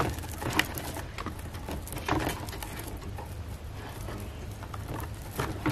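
Hands tying a plastic string through a corrugated plastic board: scattered light rustles and clicks as the string is knotted and pulled tight, over a low steady hum.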